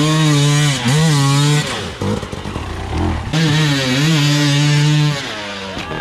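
Enduro dirt bike engine held at high revs in two long stretches, dropping off for about a second and a half in between and falling away again near the end.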